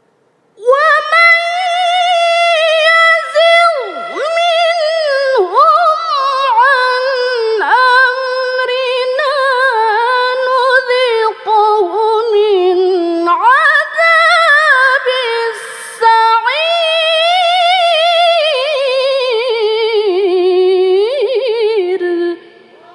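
A woman reciting the Quran in the melodic tilawah style, unaccompanied. She holds one long, high phrase full of quick melismatic turns and glides, sinking lower in pitch toward the end before she stops.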